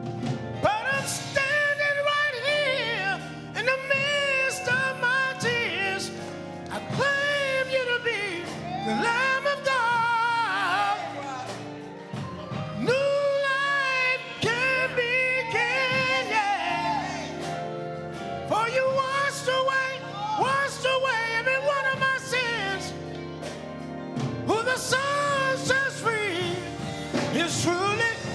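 Music: a solo singer holds long, wavering notes in slow phrases over steady instrumental accompaniment, a church worship song.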